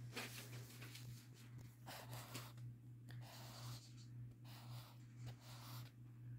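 Felt-tip marker rubbing and scratching on sketchbook paper in short, uneven strokes while colouring in, faint, over a steady low hum.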